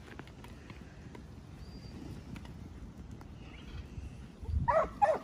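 A mob of sheep moving over dirt, with a low trampling of hooves, then, about four and a half seconds in, a working yard dog barking at the mob in several quick, short barks. This is the mob bark that drives the sheep.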